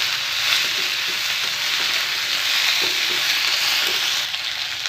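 Chopped radish leaves sizzling in hot oil in a metal kadhai while being stirred with a metal spatula. The sizzle is steady and eases a little about four seconds in.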